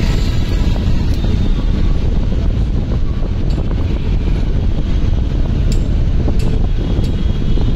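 Steady, loud low rumbling noise throughout, with a few faint light clicks on top.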